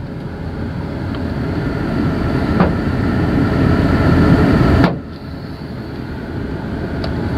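Steady low rumble of vehicle and road noise that grows louder over the first five seconds, breaks off suddenly, then builds again. A single faint click about two and a half seconds in.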